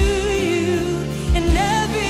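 Live worship band playing a song: a singing voice carries the melody over the band, with low drum thumps near the start and twice more after about a second and a half.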